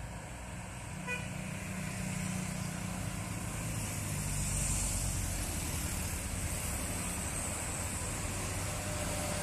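Traffic on a steep hill road: diesel truck engines and motorcycles approach and pass with a steady low engine rumble that grows louder partway through. A short horn toot sounds about a second in.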